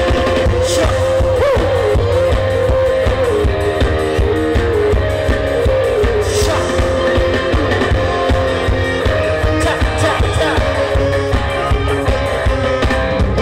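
Live stage band music played loud through a PA: electric guitar, keyboard and drum kit keeping a steady beat, with a singer on the microphone.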